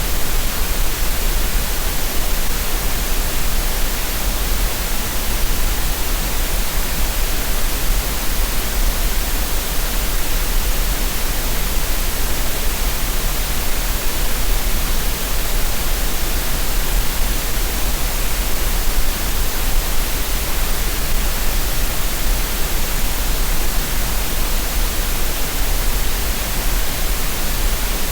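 Steady synthetic green noise: an even, unchanging hiss with no breaks or events.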